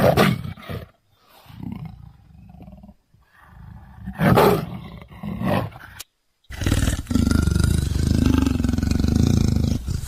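Leopard vocalising: about four short calls in the first six seconds, then after a brief break a continuous low growl.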